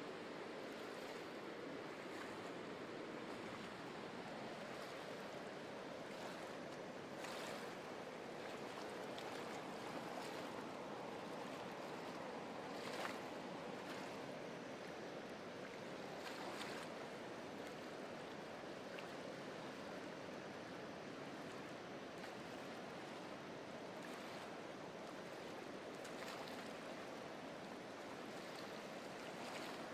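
Shallow sea water lapping and washing over flat beach rock at the shoreline, a steady faint wash with a few brief sharper splashes.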